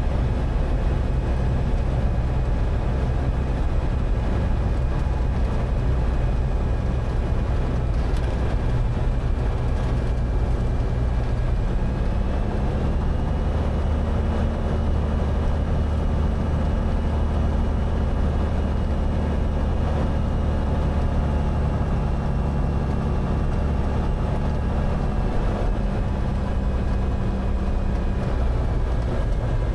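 Cessna 182's engine and propeller droning steadily in the cabin on the landing approach. The pitch steps up a little about twelve seconds in and drops back near the end as the plane comes over the runway.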